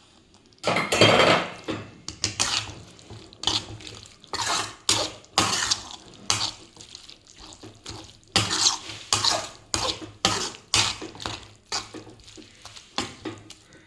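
A spoon stirring the lime pickle in a pan, scraping and clinking against the pan in irregular strokes as the added sugar is mixed in.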